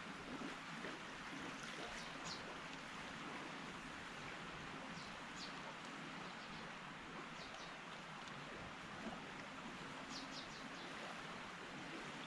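Steady hiss of a lit Trangia camp stove burning under a pan, with faint short high chirps now and then.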